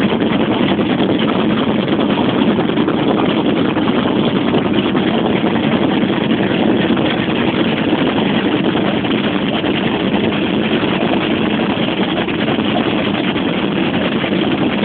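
A small boat's motor running steadily while the boat moves across the water.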